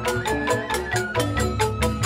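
Joged bumbung bamboo gamelan playing: bamboo xylophones (grantang) struck with mallets in a fast, even stream of interlocking notes over a repeating low bass.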